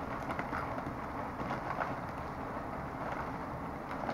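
Faint, scattered crinkles of a Lay's Kettle Cooked chip bag being handled, over steady low room noise.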